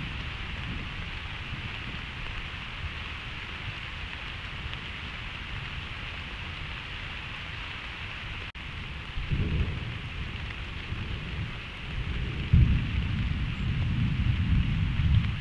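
Thunderstorm: a steady hiss of rain under low rolls of thunder, a short rumble about nine seconds in, then a longer, louder one from about twelve seconds in that opens with a sharp crack and runs to near the end.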